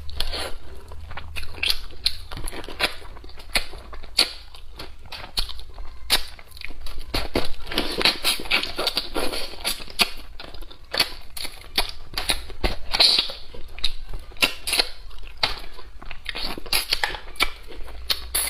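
Close-up eating sounds of a person chewing braised fish and vegetables: wet chewing and smacking, with many irregular sharp clicks.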